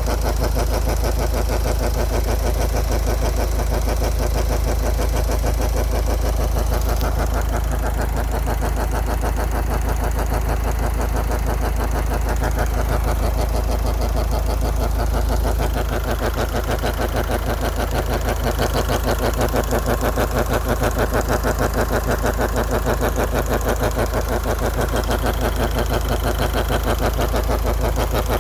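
Ford Focus Mk3's turbocharged engine running at idle with an abnormal humming drone: a steady low hum with a fast, even pulsing beat. The owner links the hum to the recent replacement of the turbo low-pressure pipe and an exhaust valve.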